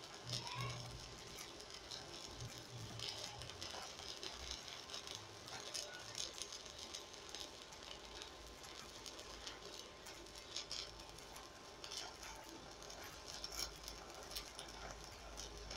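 Stick-welding arc crackling steadily with frequent sharp pops as a coated electrode lays a bead on a steel tubing joint, run at a low current of about 77 amps.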